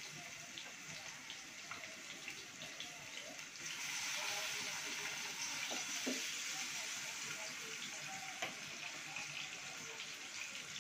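Sliced onions frying in hot oil in a pan, a steady sizzling hiss that gets louder about four seconds in as they are stirred with a wooden spoon.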